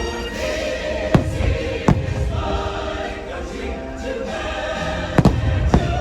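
Fireworks show soundtrack with a choir singing, and four firework bursts going off over it: two about a second and two seconds in, and two in quick succession near the end.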